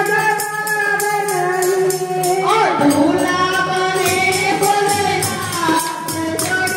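Women singing a Haryanvi devotional bhajan into a microphone, one held melody gliding between notes, over a steady beat of jingling hand percussion.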